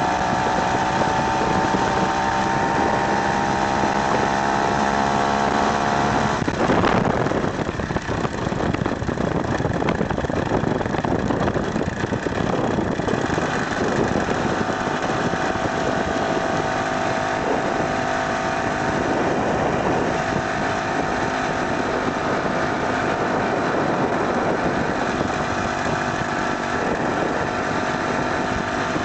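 Two-stroke Ural chainsaw engine running on a motorised wheelchair, its note rising slightly at first. About seven seconds in there is a sharp knock and the sound turns rougher and noisier; from about halfway it settles into a steady note again.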